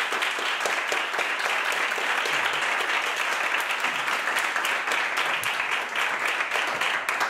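Applause from a small audience and the cast: many hands clapping together at a steady level.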